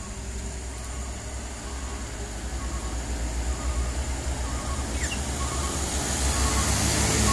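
Diesel engine of a sugarcane-loaded Mitsubishi Fuso Canter truck pulling uphill under load, growing steadily louder as it approaches, with a motorcycle passing close by. A brief chirp sounds about five seconds in.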